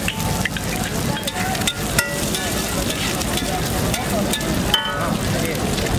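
Chopped boiled eggs, chillies and onion sizzling in oil on a large flat iron tawa, with a steel spatula scraping and clacking against the griddle in sharp, irregular strikes, two of them ringing out louder.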